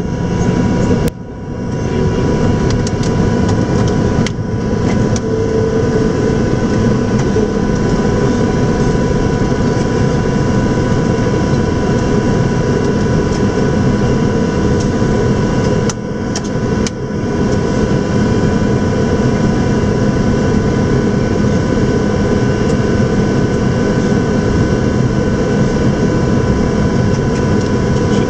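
Steady, loud cockpit noise inside an Antonov An-225 Mriya: a dense rumble with a thin steady whine above it. It drops away briefly about a second in and twice more past the middle.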